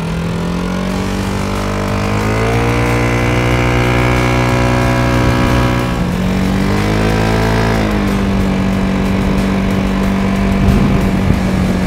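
Vespa GTS scooter's single-cylinder four-stroke engine running through a SIP Pordoi racing exhaust, accelerating away. The pitch climbs about two seconds in and holds, dips briefly around six seconds, then climbs again and holds steady.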